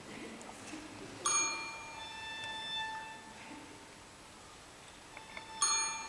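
A typewriter's carriage bell rings twice, about a second in and again near the end. Each ding opens with a sharp strike and rings on for a couple of seconds, over soft orchestral strings.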